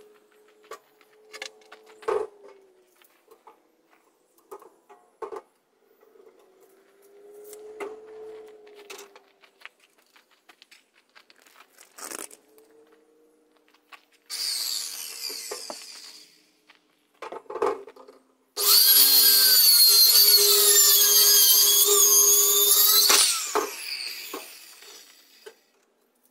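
Handheld electric power saw cutting through wooden framing boards: a short run about 14 seconds in, then a longer, loud cut about 18 to 23 seconds in that stops abruptly, with knocks of wood being handled between them.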